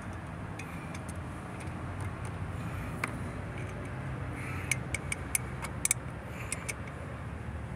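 Light clicks and taps from a hand working at a thermostat housing and its plastic electrical connector: one click about three seconds in, then a quick cluster of clicks a little later, over a steady low rumble.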